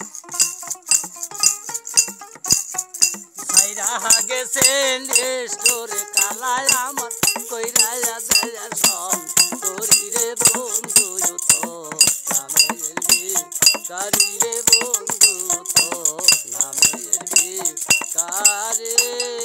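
Bengali folk music on a small plucked wooden lute like a dotara, over a steady jingling beat. A wavering melody line comes in about three and a half seconds in.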